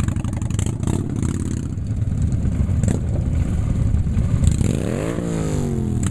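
Several motorcycle engines running together with a low rumble. About four and a half seconds in, one engine is revved up and then drops back down.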